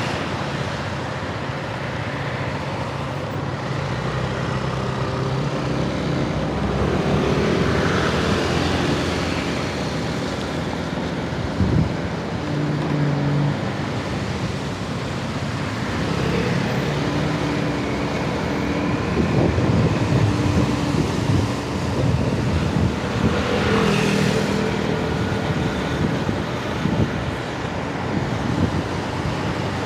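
Street traffic heard from a moving scooter: engines of passing scooters and cars over steady road noise, with one vehicle passing louder about three quarters of the way through.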